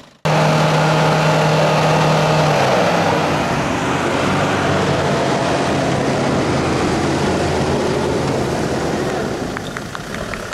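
Mercedes-Benz Vito van's engine running hard while it tows on a rope across soft grass. The sound starts abruptly, drops a little in pitch about two and a half seconds in, and eases near the end.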